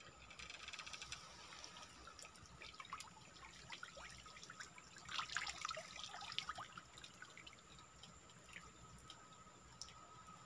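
Water dripping and trickling off a raised bamboo lift net as it is scooped with a hand net, a patter of small drips and splashes that is busiest about five to six seconds in. A faint steady high tone runs underneath.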